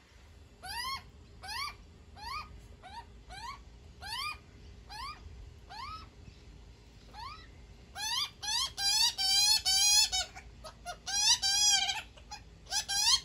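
Juvenile Australian magpie begging for food: a string of short rising calls, about one and a half a second. About eight seconds in they turn into faster, louder, wavering calls.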